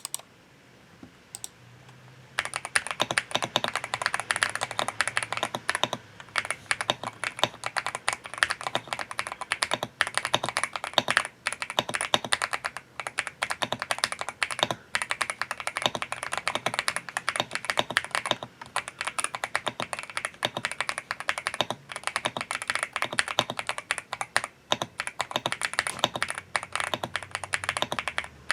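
GMK67 mechanical keyboard with Leobog Graywood V3 linear switches being typed on fast and continuously, a dense clatter of keystrokes that begins about two seconds in after a couple of single clicks.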